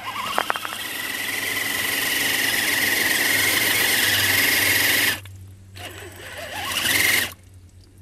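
Electric motor and gearbox of a DF-Models 4J XXL RC crawler whining at full throttle as its tyres spin in mud and water, building for about five seconds and then cutting off. After a short pause a second, rising whine as it is throttled up again. The truck is stuck in a muddy hole.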